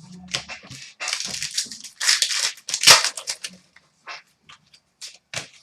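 Trading-card pack wrapper being torn and crinkled while cards are handled: irregular rustling and crackling, loudest in the middle, then a few short clicks of cards being handled.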